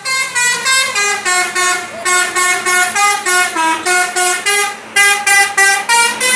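Bus 'telolet' musical horn playing a fast tune of short notes stepping up and down in pitch, about four a second, with a brief pause just before five seconds in.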